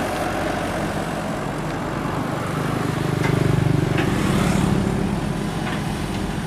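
Sumitomo 265 hydraulic excavator's diesel engine running steadily while it works. The engine note grows louder for a couple of seconds in the middle as it takes on hydraulic load, with a few faint knocks.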